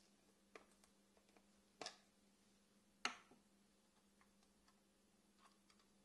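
A spoon clicking and scraping against a small plastic jar as butter is scooped out, in a few scattered sharp knocks with the loudest about three seconds in, then faint ticks.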